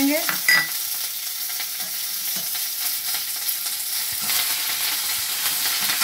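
Cumin and mustard seeds with curry leaves sizzling and crackling in hot ghee in a steel kadhai: a tadka tempering, the seeds left to splutter. A brief ringing clink comes about half a second in, and the sizzle grows louder about four seconds in.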